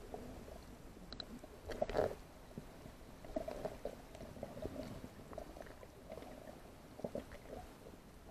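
Faint, muffled underwater sound picked up through a waterproof camera housing, with irregular small clicks and crackles.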